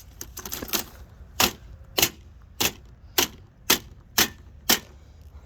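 A run of sharp clicks or taps: a few light ones, then seven strong ones in a steady rhythm about two a second that stop shortly before the end.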